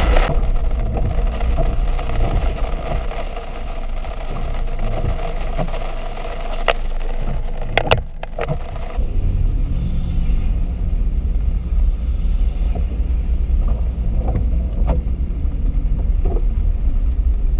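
Car driving, heard from inside the cabin: a steady low road and engine rumble, with a few sharp isolated clicks or taps.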